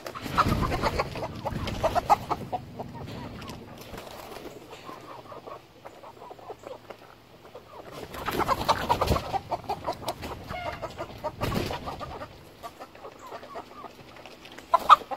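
Backyard hens clucking as they scratch about. Twice there are louder stretches of rustling and scuffing in the dry litter, near the start and about eight seconds in, as a person in sandals moves among them. A short, loud call comes just before the end.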